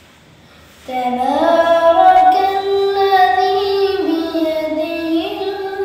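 A boy's voice reciting the Quran in melodic chant. After a short pause of about a second, he sings one long, drawn-out phrase, holding notes as the pitch steps up and down.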